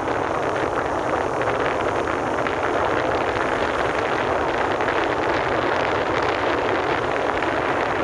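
Steady, loud wind rush buffeting the microphone of a handheld camera riding on a moving electric bike, with no engine note.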